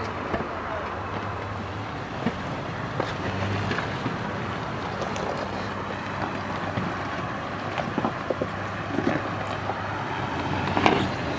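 Toyota FJ Cruiser's V6 engine running steadily at low revs as the vehicle crawls over rocks, with wind rushing over the microphone and scattered small clicks throughout.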